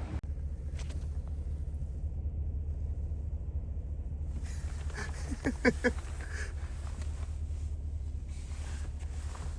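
Vehicle engine running with a steady low rumble. Around the middle, a brief run of short voice-like calls sounds over it.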